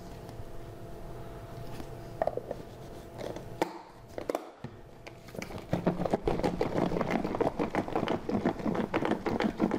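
A few sharp clicks as a food container of sliced cucumbers is handled, then from about halfway through, rapid rattling as the container is shaken to mix the vinegar, sugar and salt into quick sunomono pickles.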